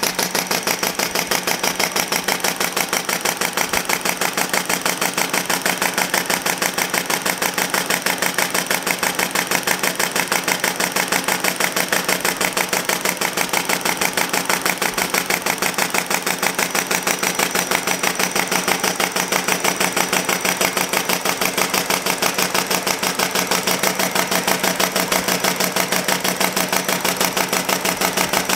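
Model two-cylinder four-stroke engine, a stylized early John Deere tractor engine with a 3/4-inch bore, running on compressed air: a rapid, even beat of exhaust puffs at a steady speed.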